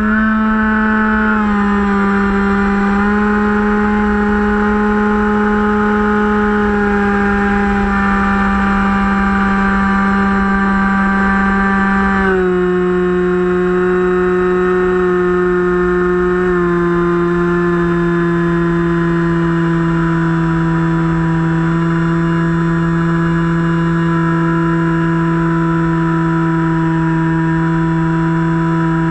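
Finwing Penguin RC plane's electric brushless motor and pusher propeller running at high throttle in flight: a steady, loud motor tone that drops in pitch a few times as the throttle is eased back, most clearly about 12 and 17 seconds in. Wind noise rushes over the onboard camera's microphone underneath.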